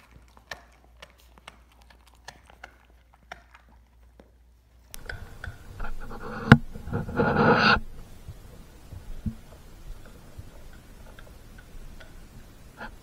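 Dog gnawing and chewing a raw lamb leg: a scatter of small clicks and crunches of teeth on meat and bone, with one sharp crack and a brief louder noisy burst about seven seconds in.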